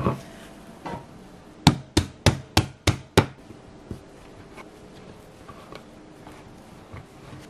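A knock as bread dough is turned out of a glass bowl onto a bamboo cutting board, then six quick, sharp knocks on the board, about three a second. After that come faint scrapes and taps as a plastic dough scraper cuts the dough.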